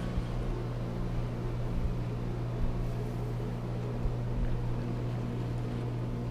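Steady low mechanical hum from a running machine, unchanging in pitch and level.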